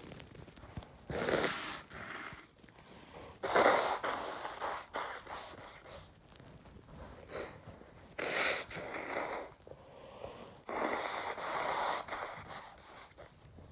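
A person blowing their nose and snorting, in four noisy blows of about a second each, the loudest starting sharply a few seconds in.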